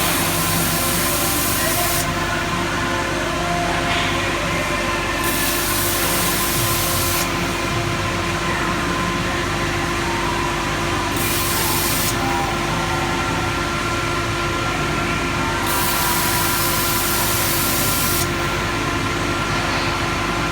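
Peddinghaus Peddiwriter CNC layout marking machine running with a steady mechanical hum. A hiss switches on and off over it four times, each lasting one to two seconds, as the marking head works.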